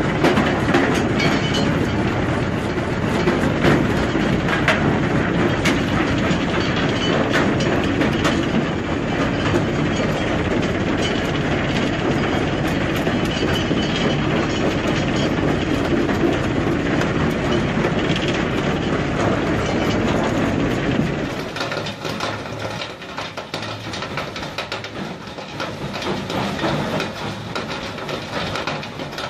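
Heavy crushing machine running: a loud, steady rumble packed with crunching, rattling clicks. About 21 seconds in it turns quieter and thinner, losing its deepest rumble.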